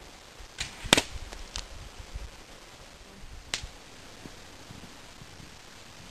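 A homemade wooden bow is shot, giving one loud sharp snap about a second in, with a few fainter clicks around it and another a couple of seconds later.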